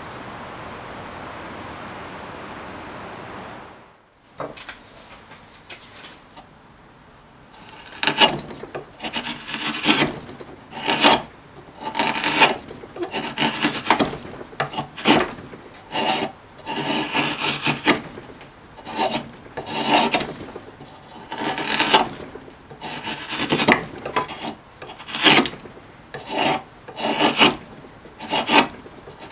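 Hand-forged drawknife shaving wood off the end of a wooden stick: repeated cutting strokes, about one a second, starting several seconds in after a few seconds of steady background hiss.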